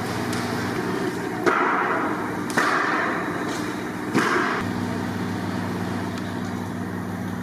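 Three sharp knocks, each followed by a short rush of noise, over a steady low hum that grows stronger about two-thirds of the way through.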